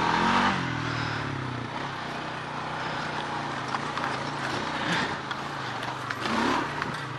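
Engine of a small ridden motor vehicle running, its pitch falling in the first second as it eases off, then holding steady under a rushing noise.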